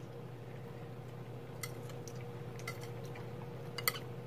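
A metal fork lightly clicking against a bowl a few times during eating, the last two clicks close together near the end, over a steady low hum.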